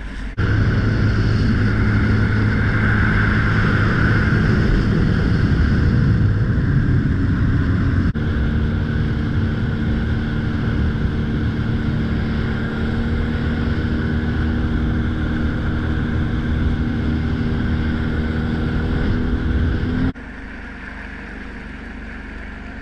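A boat motor running steadily, with wind and water noise. The sound changes abruptly about eight seconds in, and near the end cuts down to quieter wind and water.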